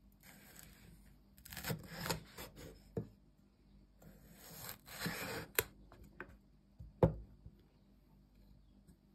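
Large cleaver-style kitchen knife slicing through a yellow bell pepper on a wooden cutting board: two stretches of crisp cutting noise, with several sharp knocks of the blade on the board, the loudest about seven seconds in.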